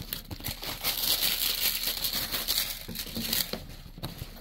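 Clear plastic wrapping crinkling as it is handled around a cardboard box, a dense crackle that dies down about three and a half seconds in.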